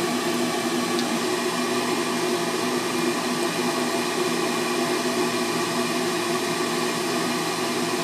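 Draft inducer blower of a high-efficiency gas furnace running steadily: an even motor hum with several steady tones over a rush of air.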